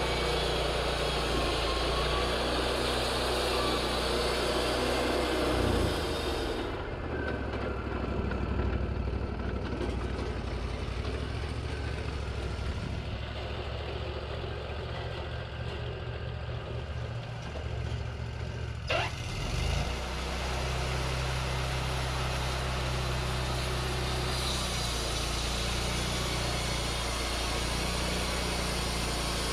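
Wood-Mizer LT40 portable band sawmill's engine running steadily. For about twelve seconds in the middle its sound drops and changes, with a short rising sweep near the end of that stretch, then it settles back to the same steady running.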